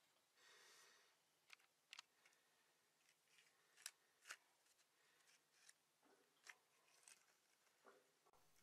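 Near silence, with a few faint, brief clicks and taps of plastic toy pieces being handled on a wooden table.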